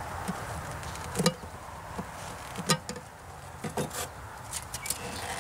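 Metal hive tool prying and knocking at a feeder can stuck in a wooden bee package box: several sharp clicks and knocks, the loudest about a second in.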